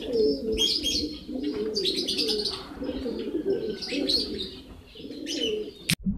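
Racing pigeons cooing in repeated low, warbling phrases, with short high bird chirps over them. The sound cuts off suddenly near the end.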